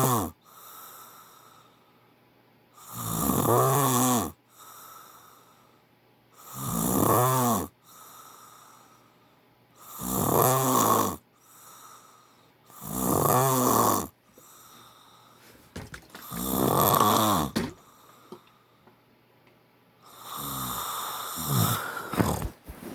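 A man snoring loudly in his sleep. A loud, rasping snore comes about every three seconds, six in all, each followed by a softer breath. The last snore is longer and breaks off in a few short catches.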